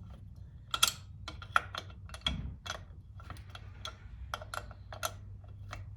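Sharp metal clicks of a wrench turning the chain adjuster nut on a Kayo K2 230 dirt bike's swingarm. The clicks come in an irregular run of about three a second as the nut is twisted to draw the rear wheel back and tension the chain.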